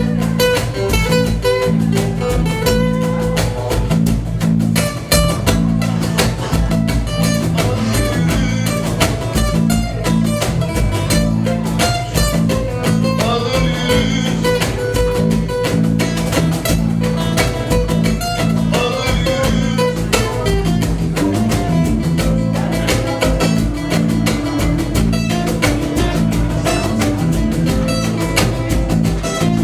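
Acoustic band playing an instrumental passage of a song, led by guitar, with many quick plucked notes over steady low notes.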